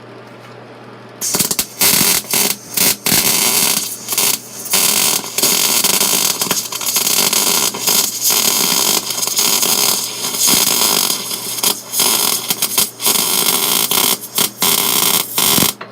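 MIG wire-feed welding arc crackling as beads are run on galvanized steel tube, in several passes broken by short stops, starting about a second in after a steady hum and cutting off just before the end.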